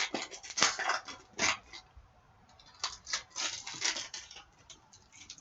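Trading card pack wrapper and cards being handled: a string of short crinkling and rustling bursts as the foil is worked open and the cards are shuffled.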